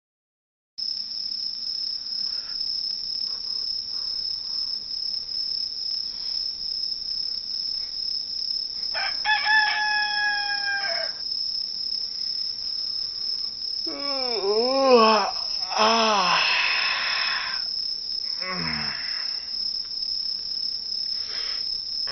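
Crickets chirping in a steady, high, even trill, starting just under a second in. Partway through, a rooster crows: one long held call, then a rising-and-falling crow a few seconds later.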